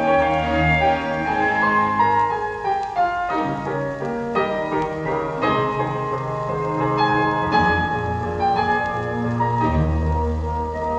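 Piano-led instrumental music played back through Dynaco A-35 loudspeakers, fitted with freshly replaced crossover network parts, for a listening test.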